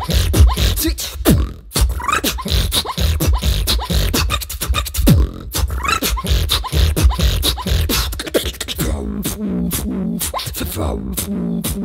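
Solo beatboxing by a female beatboxer: a driving beat of bass-drum kicks and sharp snare and hi-hat clicks made with the mouth. About nine seconds in, a wavering, pitched bass tone joins the beat.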